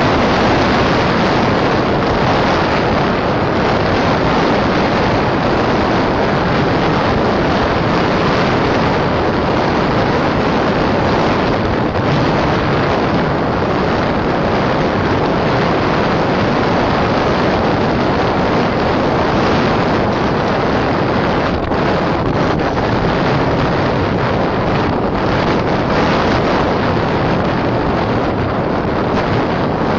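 Steady, loud wind rushing over a moving microphone at speed down a mountain road, with no engine tone heard through it.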